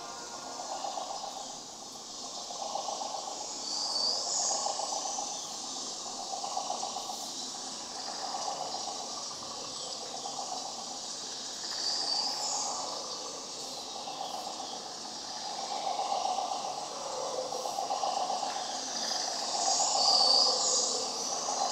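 Ambient electronic soundscape: a noisy, hissing texture that swells and fades every couple of seconds, with a brief high sweep coming back about every eight seconds.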